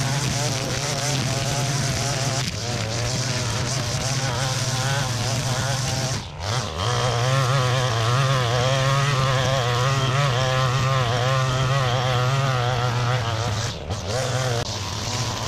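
Gas-powered string trimmer running at high throttle, cutting through tall grass, its pitch wavering constantly. It eases off briefly twice, about six seconds in and near the end.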